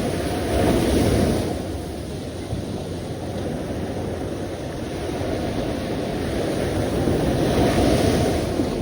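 Sea waves washing on the shore, a steady rush of surf that swells about half a second in and again near the end. Some wind buffets the microphone.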